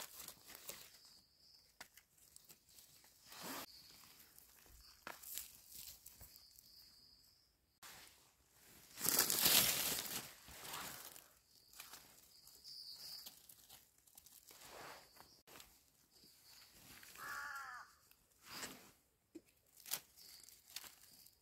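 Dry leaf litter rustling and crackling under a hand as termite mushrooms are dug and picked from the forest floor, in short scattered bursts. About nine seconds in comes one louder, longer crackle.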